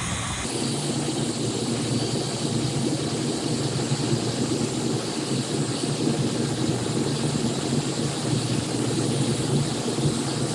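Electric heat gun running steadily, its fan blowing hot air onto stretched and kinked PEX-A pipe to shrink it back to its original size and shape.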